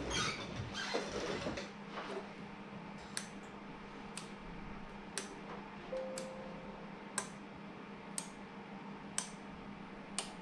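Plastic enclosure and small parts handled and rustled for the first couple of seconds, then a sharp tick about once a second, steady and regular, over a faint low hum.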